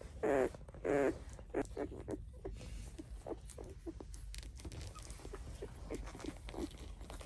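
Newborn Doberman puppies whimpering while nursing: two wavering whiny cries in the first second or so, then many faint little squeaks and clicks.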